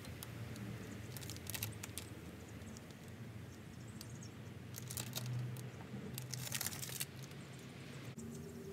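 Clear plastic decal transfer tape crinkling in several short rustles as it is peeled off a vinyl decal and the decal is rubbed down by hand.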